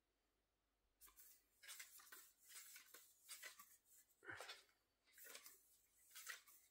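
Faint paper rustling as the pages of a thick glossy photo booklet are turned and handled, in a string of short irregular rustles starting about a second in.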